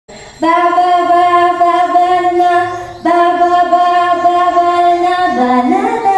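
A woman's voice singing two long held notes on the same pitch, then dropping lower and sliding upward near the end.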